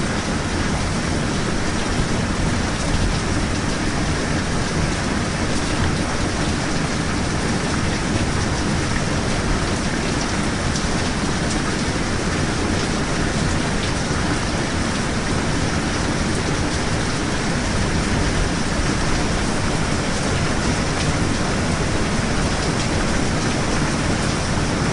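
Steady rain falling, a dense even hiss that runs on without breaks.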